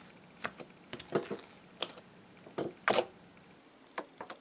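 Glitter slime being stretched and poked by fingers on a table, giving irregular sticky clicks and little pops, about eight or ten in all, the loudest about three seconds in.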